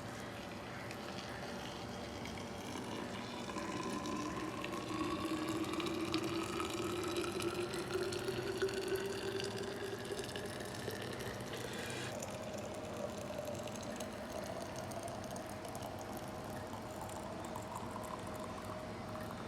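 Just-boiled water poured from a kettle into a flask, the pitch of the filling rising steadily as the flask fills. About twelve seconds in the rising tone breaks off and a lower one takes over, climbing slowly again.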